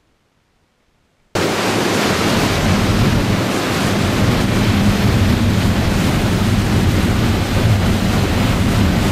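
Near silence, then a little over a second in a sudden loud rush of wind, waves and spray as two jet skis run through choppy water, with a low engine drone underneath.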